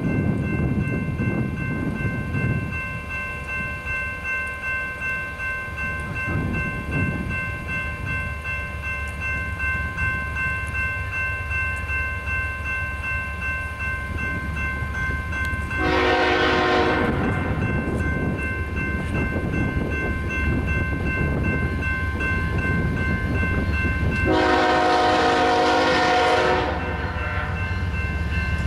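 A BNSF GE ES44C4 locomotive's air horn blowing twice, a shorter blast about halfway through and a longer one near the end, over the low steady rumble of the approaching freight train. Steady high-pitched ringing tones run underneath.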